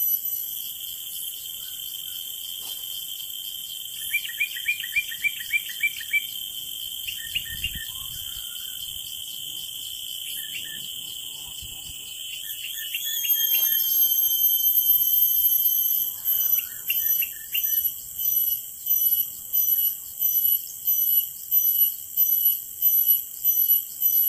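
Cicada drone: a steady, high-pitched buzz that swells about halfway through, then pulses about one and a half times a second. Short runs of small-bird chirps come in several times over it.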